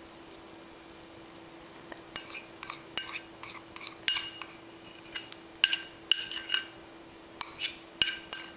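A spoon clinking against a mixing bowl: an irregular run of sharp clinks, each with a brief ringing, starting about two seconds in.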